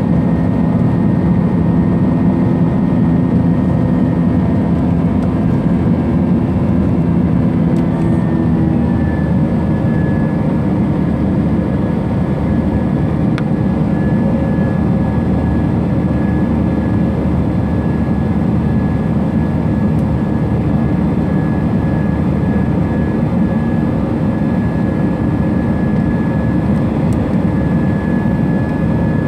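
Airbus A320 jet engines running at takeoff power, heard as a loud, steady rumble from inside the cabin, with a thin high tone over it. The tone and the rumble shift slightly about eight seconds in.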